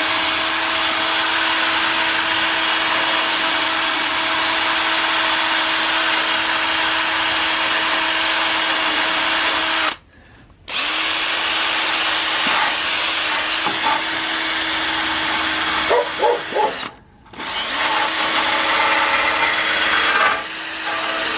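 Handheld power tool spinning up to a steady whine, run in three stretches that break off about ten seconds in and again about seventeen seconds in, cleaning the turn signal fixture's metal surface so the bulb can ground to it.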